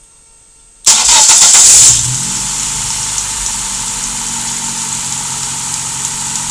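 Dodge Neon's four-cylinder engine cranked by the starter for about a second, then catching and settling into a steady idle, running on a Megasquirt standalone engine computer.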